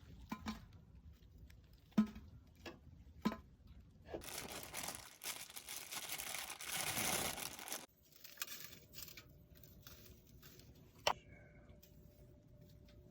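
Several light knocks, then about four seconds of crinkling and tearing, then a single sharp knock near the end.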